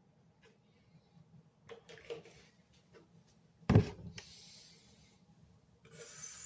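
Handling noises: a few soft clicks, then one sudden loud thump a little past the middle, followed by a faint hiss and some low rustling near the end.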